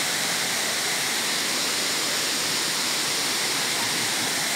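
Steady, even rush of Pongour Falls, a wide tiered waterfall, with water pouring down over rock ledges into the pool below.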